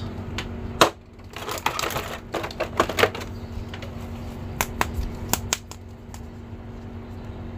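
Hard plastic action figures being handled and pulled out of a clear plastic blister tray: irregular sharp clicks and crinkles of plastic, over a faint steady hum.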